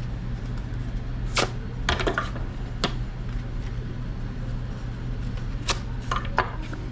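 Drywall gypsum core snapping as pieces are broken off the face paper of a hot patch: a handful of sharp, separate cracks over a steady low hum.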